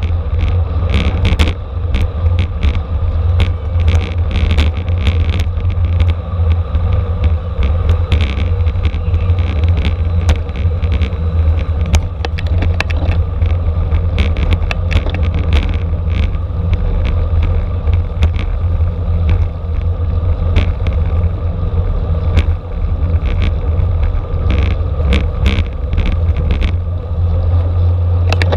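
Wind rushing over the microphone of a camera on a racing bicycle at speed, a steady low roar, with frequent short clicks and rattles from the bike on the road.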